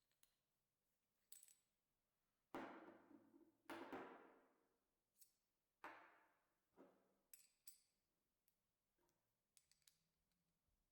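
Metal pieces striking one another: four sharp clinks, each ringing briefly as it fades, among several lighter clicks.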